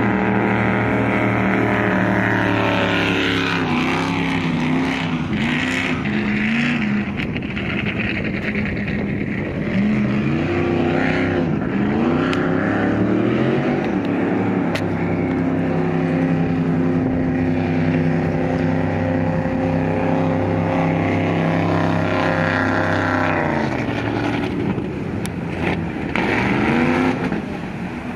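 Racing powerboat's engine running hard at speed, its note dipping and climbing again several times.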